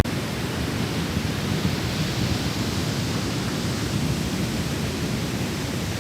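Steady rushing noise of wind and sea surf on an open beach, with wind buffeting the microphone and giving a low rumble.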